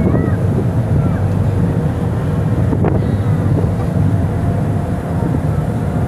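Strong wind buffeting the microphone over a ship's steady low engine drone and the rush of rough sea. A single sharp knock about three seconds in.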